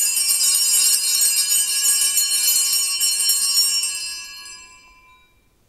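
Altar bells rung at the elevation of the chalice after the words of consecration. They sound for about four seconds and then die away.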